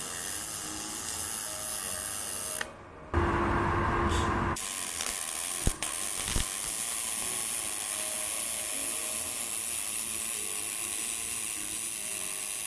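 Pulsed MIG welding arc running on aluminium with AlMg5 filler wire under argon: a steady buzzing crackle. It drops out briefly about two and a half seconds in, then comes back louder for a second or so before settling again.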